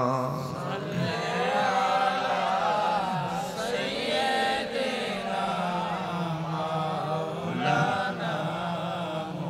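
Many voices chanting the Arabic durood, the blessing on the Prophet, together in a slow, drawn-out melody over a loudspeaker system.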